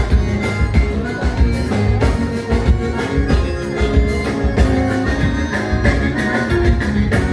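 Live gaúcho dance band playing an instrumental vanera passage: accordion and guitar over bass and a steady, driving drum beat.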